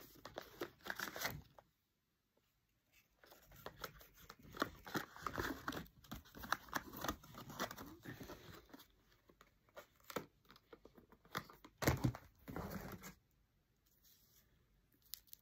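Paper and cardboard packaging being handled and torn open, with irregular rustling, tearing and crinkling, a short pause about two seconds in and a louder moment of handling about twelve seconds in.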